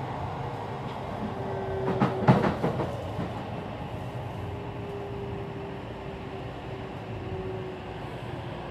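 Running sound of a Keikyu New 1000 series electric train car with a Mitsubishi SiC-VVVF inverter: a steady rumble of the wheels on the rails with a faint steady motor tone. About two seconds in, a short run of loud clacks as the wheels cross rail joints.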